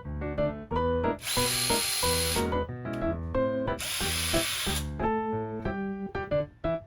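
Two bursts of a power drill running, each about a second long, over background music.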